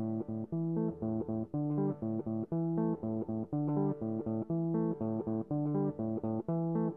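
Background music: a steady pattern of short, separate pitched notes.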